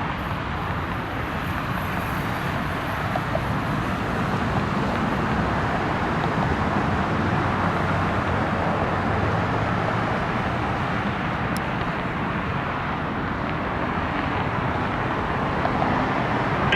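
Steady rushing roar of distant engine noise that swells a little in the middle and eases off again.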